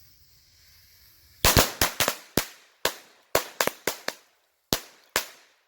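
Machine-gun firecrackers going off: about a dozen sharp bangs in quick, uneven succession, starting about a second and a half in.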